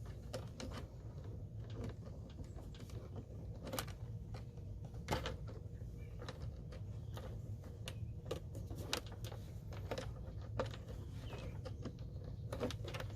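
Scattered light clicks and knocks of a new ground wire and the blower's plastic housing being handled as the wire is threaded through, over a steady low hum.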